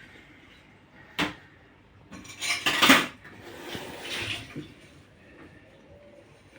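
A sharp knock about a second in, then a burst of clattering and rattling of hard objects, like dishes or kitchen utensils being handled, loudest near the middle, with a softer rattle after it.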